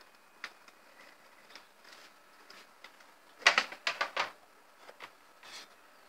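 Light clicks and knocks of a metal espresso portafilter being handled and filled with ground coffee, with a quick run of about five sharp taps about three and a half seconds in and a short scraping sound near the end.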